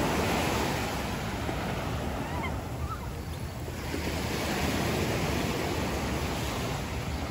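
Small surf breaking and washing up a sand beach, with wind buffeting the microphone. The wash eases about three seconds in and builds again with the next wave about a second later.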